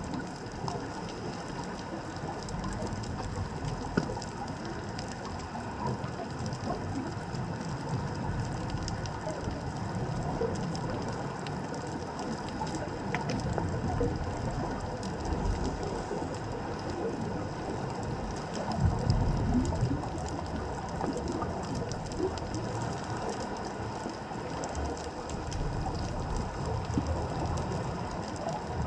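Underwater reef ambience picked up by a stationary GoPro in its housing: a steady crackle of small clicks over a low rumble of moving water, with a louder low rush about two-thirds of the way through.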